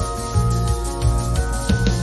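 Background music: held tones over a pulsing bass line.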